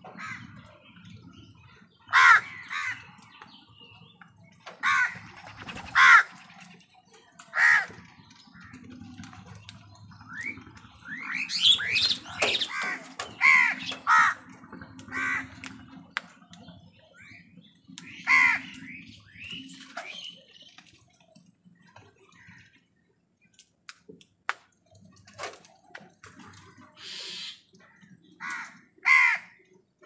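A flock of house crows cawing: harsh single caws spaced a few seconds apart, with a burst of overlapping caws in the middle.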